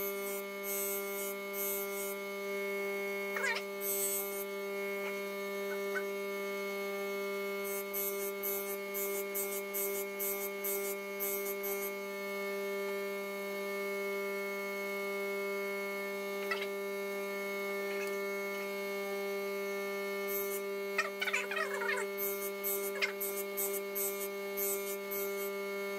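Union tool and cutter grinder's motor running with a steady hum while an endmill's end is passed back and forth across the white cup wheel, giving several runs of short, high grinding hiss. This is the grinding of the 15-degree secondary relief on the endmill's end cutting faces.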